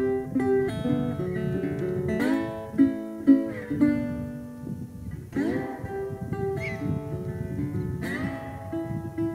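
Background music of strummed acoustic guitar, a new chord ringing out about every three seconds over plucked melody notes.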